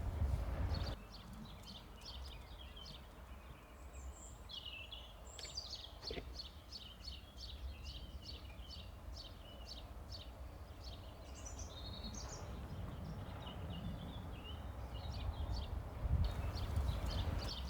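Small birds singing, a run of many short, quick high chirps and trills, over a low outdoor rumble that swells near the start and again about three-quarters of the way through.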